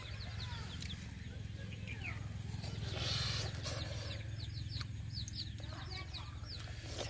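Birds chirping in many quick, high, falling notes, with some lower clucking like chickens, over a steady low rumble.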